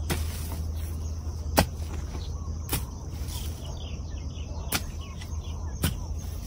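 A long-handled hoe striking into the soil four times, sharp strikes one to two seconds apart, as the ground is dug to lift arrowroot rhizomes.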